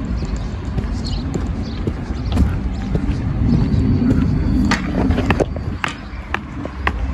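A steady low rumble with a series of sharp knocks or clicks in the second half, several of them about half a second apart.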